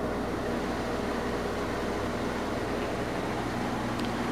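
Steady low hum and hiss of background room noise, with one faint tick near the end.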